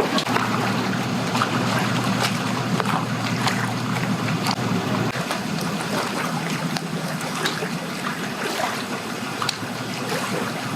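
An engine running low and steady, its pitch dropping slightly about five seconds in, over wind noise on the microphone and choppy water.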